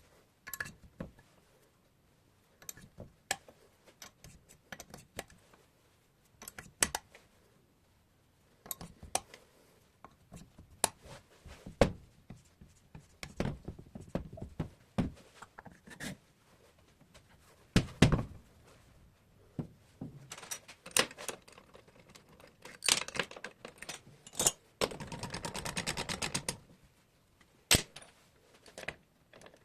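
Metal tools and engine parts being handled during cylinder-head work: scattered clinks, clicks and knocks, a heavier knock about two-thirds of the way through, and a rapid rattling for about a second and a half near the end.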